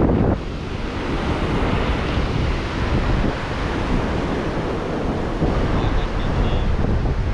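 Ocean surf washing onto a beach, with wind rumbling on the microphone.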